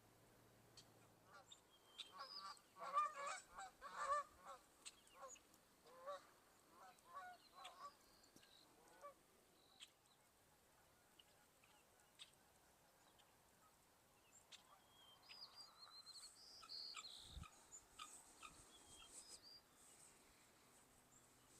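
Geese honking in a quick run of calls for several seconds, then higher, thinner bird calls later on.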